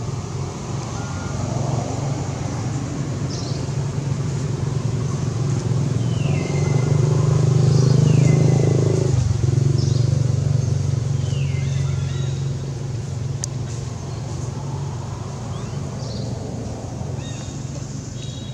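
A motor vehicle engine running nearby: a steady low hum that grows louder to a peak about halfway through, then slowly fades. A few short, high, falling chirps sound over it.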